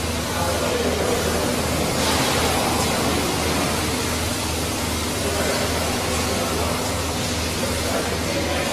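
Steady machinery noise, a loud even hiss with a low, regular pulsing underneath at about two to three beats a second.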